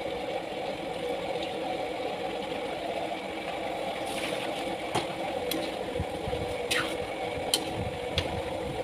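A steady mechanical hum with a metal ladle clinking and scraping against a stainless steel pan of vegetables about five times in the second half.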